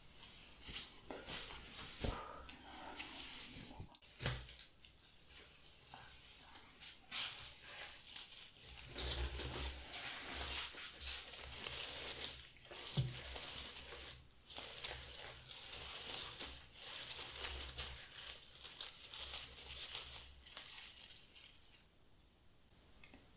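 Dry rustling and crackling of dried bunny-tail grass stems being sorted and pulled apart over sheets of newspaper, with many small crisp clicks and a few soft bumps.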